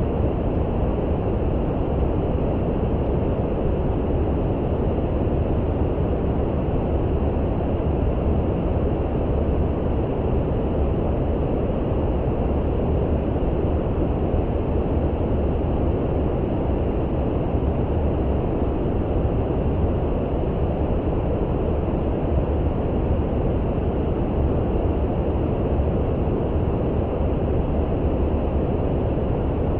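Steady, unbroken brown noise: a deep, even hiss-rumble with no pitch, rhythm or change.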